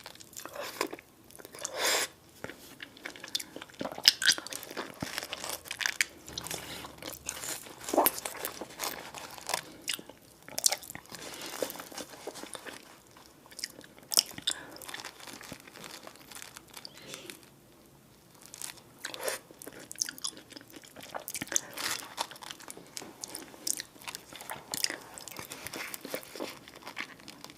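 Close-miked eating: irregular bites and chewing with sharp, sticky clicks, and a short lull about two-thirds of the way through.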